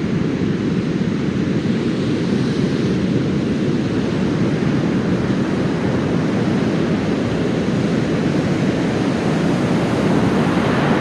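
Heavy surf breaking and washing up a sandy beach in a steady, loud rush of rough post-typhoon seas, swelling slightly near the end, with wind buffeting the microphone.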